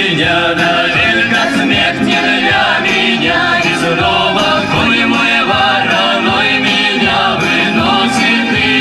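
Music: a Cossack folk song, voices singing over instrumental backing with a steady beat.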